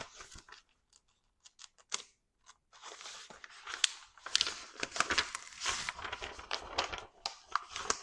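A sheet of paper being handled and torn: a few light clicks at first, then from about three seconds in a run of rustling and crackling.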